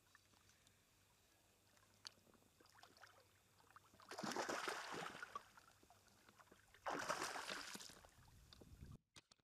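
Hooked black bass thrashing and splashing at the water's surface while being played on the line: one long splash about four seconds in and a second, shorter one about seven seconds in.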